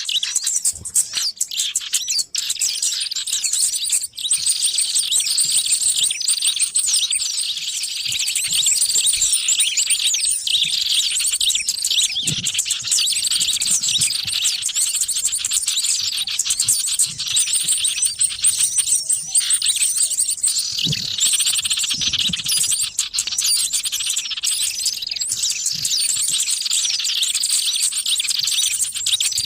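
Dense, continuous chatter of many small songbirds chirping and twittering at once, high-pitched and without a break: a bird-lure (pikat) recording of noisy small birds, used to draw wild small birds in.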